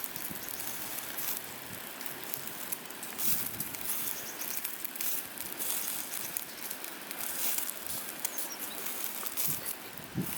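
Continuous crackling and hissing from a wood fire in a fire-pit grill, with irregular small pops.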